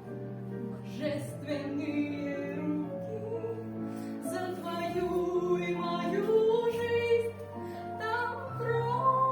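A woman singing a slow Christian song over a soft instrumental accompaniment of sustained chords.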